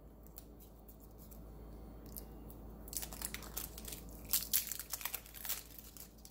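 Lipstick packaging being torn and crinkled open by hand: a few faint clicks at first, then quick rustling and crackling from about three seconds in until near the end.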